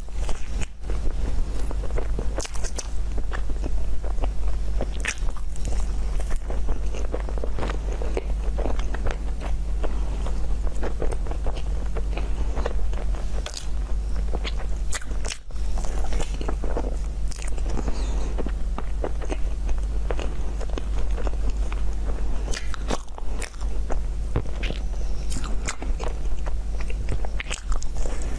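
Close-miked biting and chewing of cream-filled crepe rolls, with many small crackling clicks, over a steady low hum.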